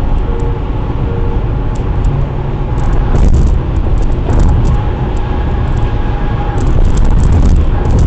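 Steady road and tyre noise of a car cruising at highway speed, about 69 mph, heard inside the cabin as a low rumble, with a few faint ticks now and then.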